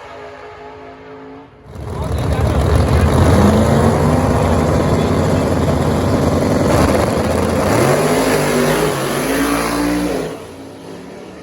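A drag-racing car launches hard and accelerates away. Its engine note climbs, drops back once at a gear change, climbs again, then fades off down the track.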